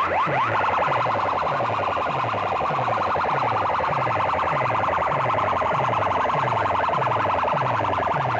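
Electronic siren-like sound effect played loud through a stack of horn loudspeakers. It opens with quick rising chirps, then settles into a fast warble over a repeating falling bass pulse.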